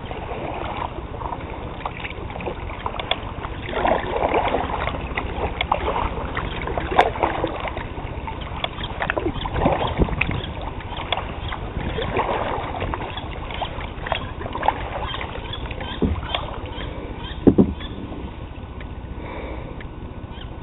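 Kayak paddle strokes: the blade dipping and splashing in slow, shallow river water every two to three seconds. A few sharp knocks come through, the loudest near the end.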